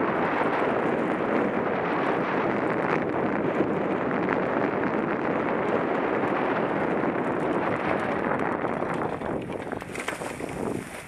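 Wind rushing over the microphone and tyre noise from a mountain bike rolling fast down a dry dirt singletrack, steady and loud, with faint rattling clicks. It dies down near the end as the bike slows to a stop.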